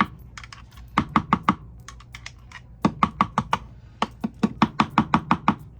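Kitchen knife chopping on a cutting board: three quick runs of sharp knocks, about six a second, with short pauses between.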